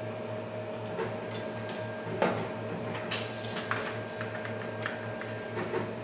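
Scattered keystrokes on the Xerox Alto's keyboard, single clicks spaced irregularly, the loudest about two seconds in, over a steady machine hum with a faint high tone.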